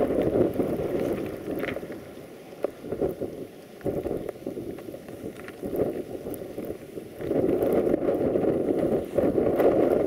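Blizzard wind gusting against the microphone, a rough rushing that eases off for a few seconds and then picks up again.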